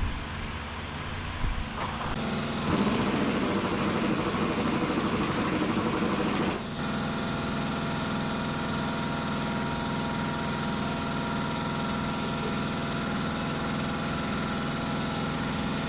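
A motor running steadily, louder and rougher between about three and six and a half seconds in, then settling to an even running tone.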